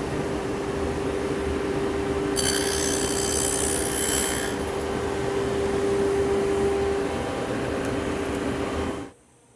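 Martin T60 sliding tablesaw running with a Forrest dado set, cutting a dado in pine. A steady motor hum and blade noise, with a louder, high-pitched cutting sound from about two and a half seconds in that lasts about two seconds. The sound cuts off suddenly near the end.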